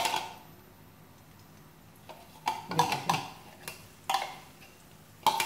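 Kitchen utensils knocking and clicking against a container and a wok while crushed garlic is tipped into the pan: a few irregular sharp knocks after a quiet stretch at the start.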